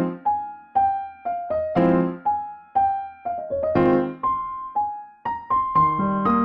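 Background piano music: a slow melody of separate notes over chords, each note fading after it is struck.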